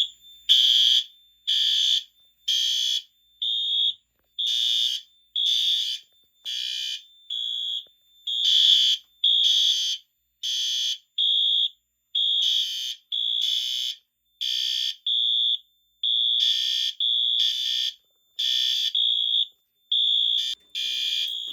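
Fire alarm horn strobes, a Wheelock MT and a System Sensor P2WL, sounding the code 3 temporal pattern: groups of three short, loud, high-pitched blasts. Two horns, one buzzy and one a purer tone, blare out of step, so their groups of blasts overlap and interleave.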